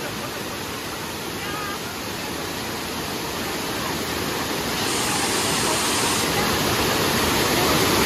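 Waterfall rushing down over rock slabs: a steady, dense rush of falling water that grows gradually louder.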